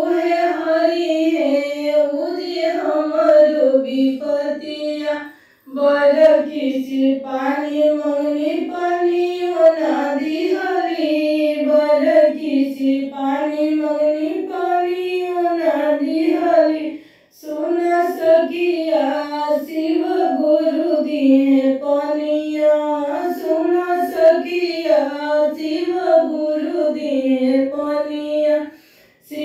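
A woman singing a Bhojpuri Shiv charcha devotional bhajan in a high voice, in long melodic phrases with brief pauses about 6 and 17 seconds in.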